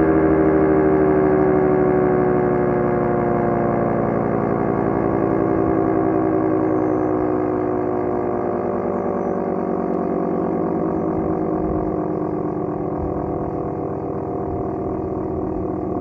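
Dual-rotor electric air raid siren winding down after a short test run, its wailing tone falling slowly and steadily in pitch and fading as the rotors coast down.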